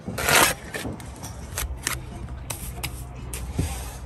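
Steel brick trowel scraping wet mortar along the top of a brick course, followed by several short, light taps and clicks of the trowel and bricks. A low steady hum runs underneath from about a second in.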